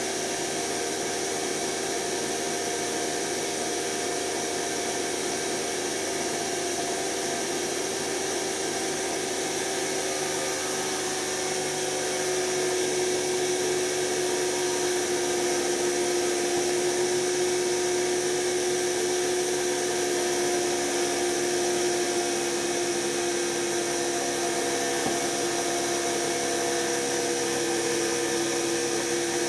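Washing machine's brushed motor running with a steady whine over a hiss, its pitch sagging slightly and the level rising a little about twelve seconds in. The motor's commutator is damaged and the motor is dying.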